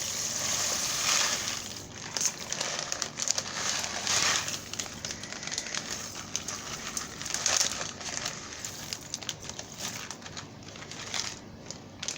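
Plastic bag crinkling and rustling as rice is emptied into a rice cooker pot, with many small clicks of grains and louder surges a few times.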